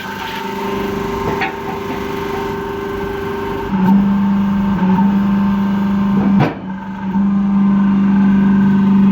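Welding machine humming with a steady low electrical drone that steps louder about four seconds in, dips briefly around six and a half seconds, then carries on.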